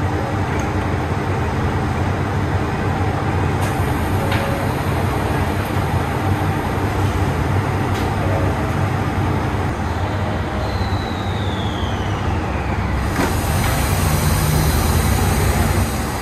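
Diesel express railcars running at the platform, a steady engine rumble as the uncoupled front set draws away from the rear set. A faint falling whine comes about two-thirds of the way through, and a hiss joins soon after as the sound grows slightly louder.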